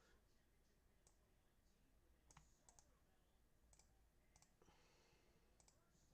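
Faint, scattered computer mouse clicks, about seven sharp clicks spread irregularly over a few seconds against near silence.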